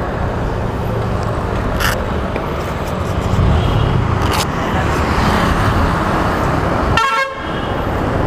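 Steady low rumble of engines and road traffic, with two short clicks and a brief vehicle horn toot about seven seconds in.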